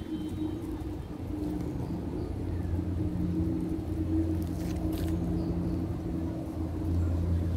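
A steady low engine hum that grows louder near the end.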